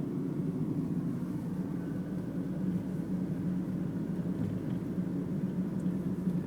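Steady low hum of a car driving, heard from inside the cabin: engine and road noise.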